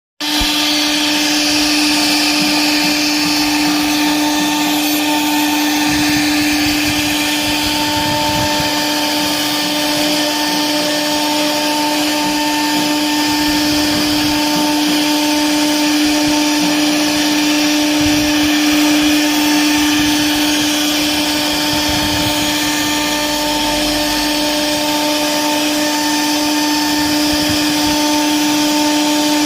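An electric motor running steadily at a constant pitch, with a high whine over a noisy rush and no change in speed.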